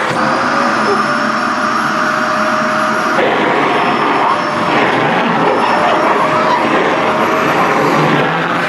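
Vacuum cleaner running steadily with a whining motor as its nozzle draws at skirt fabric; the note changes about three seconds in.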